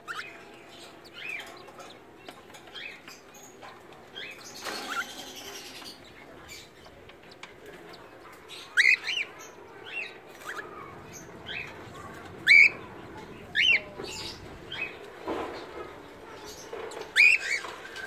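Cockatiels in a cage chirping over and over in short calls that sweep in pitch, the loudest several in the second half. A couple of brief bursts of rustling come between the calls.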